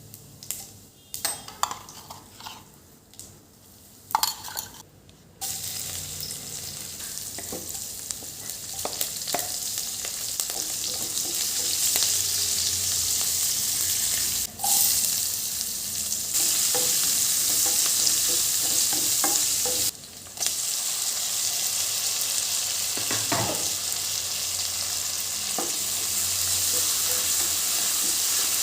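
Food frying in a pan with a steady sizzle that starts about five seconds in, after a few scattered clicks and knocks. A utensil knocks and scrapes against the pan now and then as the food is stirred, and the sizzle breaks off briefly twice.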